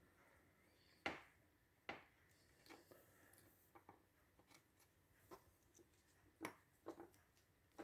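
A few faint, sharp clicks and taps of small plastic parts being handled: a wire terminal and a terminal-removal tool being worked into the back of a Toyota wiring plug. The clearest clicks come about a second in and again twice near the end.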